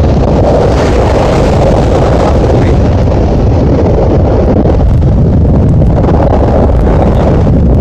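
Gale-force wind buffeting the phone's microphone in a loud, steady rumble, mixed with heavy surf breaking on the shore.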